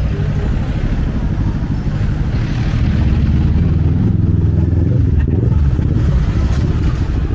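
Busy street traffic, with motorbike and car engines running and passing close by; it gets louder about three seconds in.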